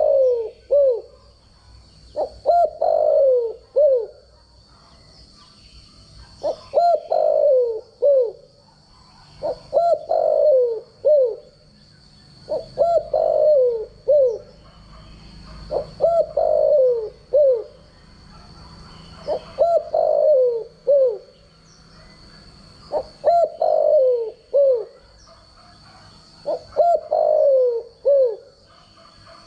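Spotted dove cooing: a phrase of a few low notes, the longest one falling, repeated about every three seconds. It is a standard-pattern coo of the kind played as a decoy call to train other spotted doves.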